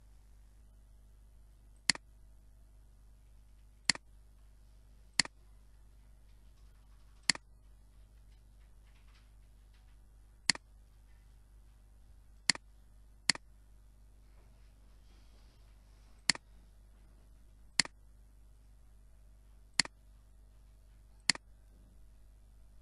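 Computer mouse button clicking: eleven single, sharp clicks at irregular intervals of one to three seconds, over a faint steady hum.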